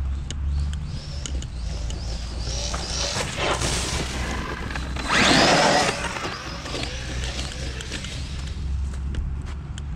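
Electric motor of a Maverick Quantum RC truck whining up and down in pitch as it is driven hard, with a louder rushing burst of noise about five seconds in, over a steady low rumble.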